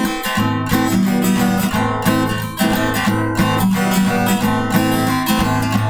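Acoustic guitar strummed in steady chords, an instrumental interlude between sung verses.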